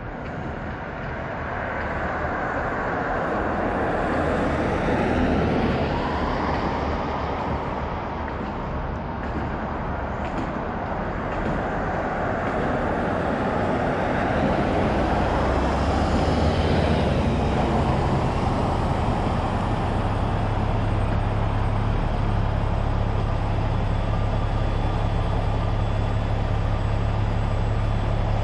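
Road traffic heard from a moving electric bike: a steady rush of road noise that swells as vehicles go by, about five and again about seventeen seconds in.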